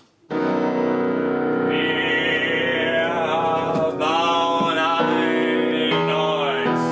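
Live cabaret song: a man singing over sustained instrumental chords. The chords start suddenly about a quarter second in, the voice comes in over them a few seconds later, and the chords change several times near the end.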